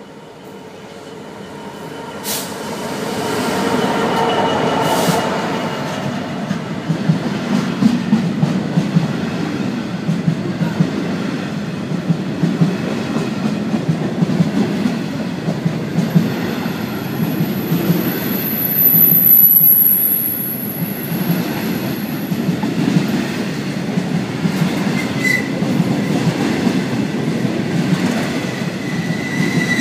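British Rail Class 66 diesel-electric freight locomotive (EMD two-stroke V12) growing louder as it runs into the station and passes over the first few seconds. It is followed by a long rake of bogie hopper wagons rolling past with a rapid clatter of wheels over the rails and a couple of brief wheel squeals near the end.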